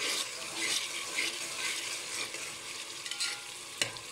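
Chopped onions, green chillies and tomatoes sizzling in oil in an aluminium pot, stirred with a metal slotted spoon that scrapes through them, with one sharp knock of the spoon near the end. The mix is being fried to cook off its raw taste.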